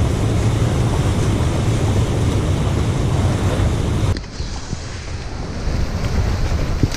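Rushing whitewater from the dam's spillway churning over rocks, mixed with a low rumble of wind on the microphone. About four seconds in the sound drops abruptly and turns thinner.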